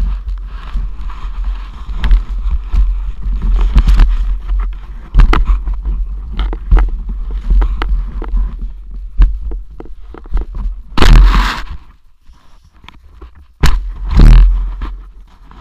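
Deep powder snow spraying over and scraping against a low-mounted action camera as it moves through the snow, with heavy wind rumble on the microphone and many short knocks. There are two louder rushes of snow, about eleven and fourteen seconds in.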